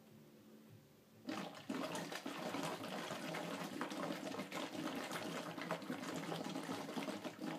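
Air blown steadily through a wide tube into a plastic bottle about a third full of water, bubbling continuously from about a second in until just before the end. This is bubble PEP airway clearance: the bubbling sends pressure oscillations back down into the airways.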